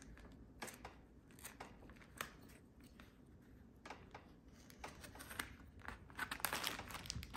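Craft knife cutting cardboard packaging and plastic wrap: faint, scattered scratches and small clicks as the blade works along the box edge, a little busier near the end.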